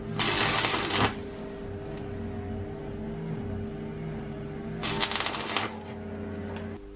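Stick-welding arc crackling in two short bursts of about a second each, one just after the start and one about five seconds in, as a small part is tack-welded; a steady low hum runs underneath.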